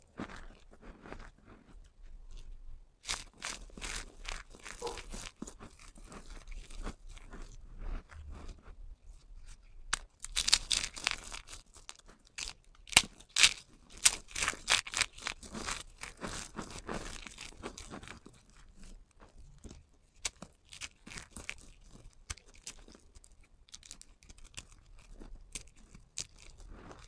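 Dry, crunchy bar soap strips and cubes being snapped and crushed between the fingers: irregular crisp crackling, thickest and loudest around the middle.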